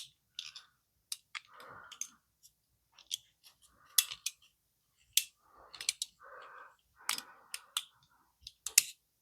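Irregular metal clicks and short scraping rubs of a small hand tool's mechanism being worked by hand.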